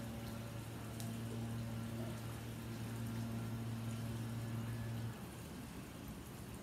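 Steady watery hiss with a low steady hum over it; the hum cuts off suddenly about five seconds in while the hiss goes on.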